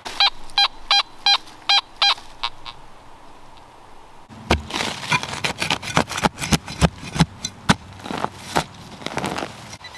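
Fisher F19 metal detector beeping over a target, about six short, evenly spaced beeps roughly three a second. After a pause, a hand digger chops and scrapes repeatedly into the soil.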